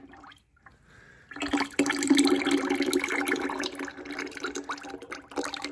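Engine oil gushing out of a small-block Chevy 400's oil pan once the drain plug is pulled. It starts suddenly about a second and a half in as a loud pouring splash, then runs on steadily and eases a little.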